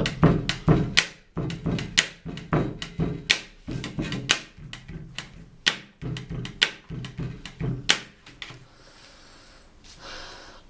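Knocking and drumming on a wooden school desk: a quick, uneven rhythm of sharp knocks that stops a couple of seconds before the end.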